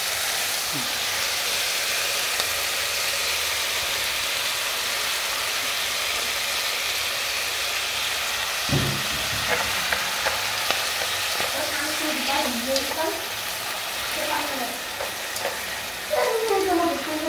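Cauliflower and green vegetables sizzling steadily as they stir-fry in hot oil in a pot. A dull knock comes about nine seconds in, and chopsticks click against the pot now and then in the second half as the vegetables are turned.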